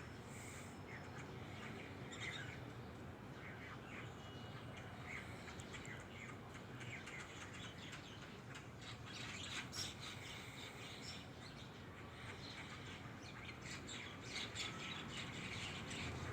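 Several small birds chirping on and off, many short high chirps overlapping, busier about ten seconds in and again near the end, over a faint steady background hum.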